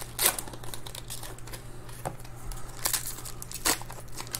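Foil wrapper of a 2021 Panini Certified Football card pack crinkling as it is torn and peeled open by hand, with a few sharper crackles scattered through.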